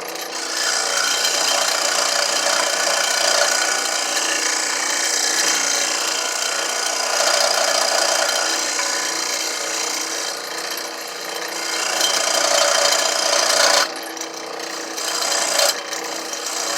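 A tool scraping along a piece of wood, making a long, continuous run to shave the surface down. It stops abruptly about fourteen seconds in, then comes back in two shorter scrapes.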